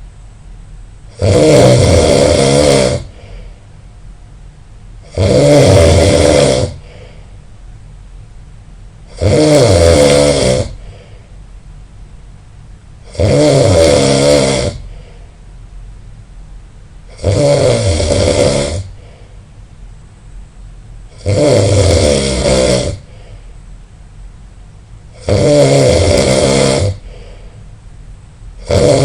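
A person snoring loudly: one long snore about every four seconds, each lasting about a second and a half, with quiet gaps between.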